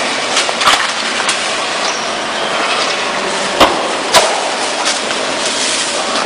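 A few sharp knocks from installation work on a solar water heater, the two loudest about three and a half and four seconds in, over a steady hiss.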